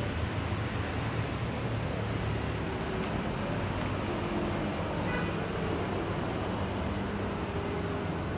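Steady low rumble and hiss of outdoor background noise, much like distant road traffic, with no distinct handling sounds standing out.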